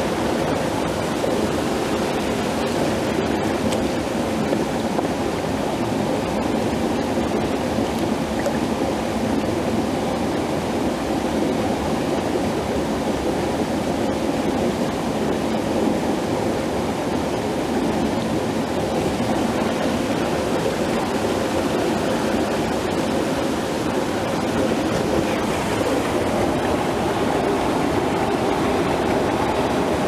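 Mountain creek rushing over a small rock cascade into a pool: a steady, even rush of water.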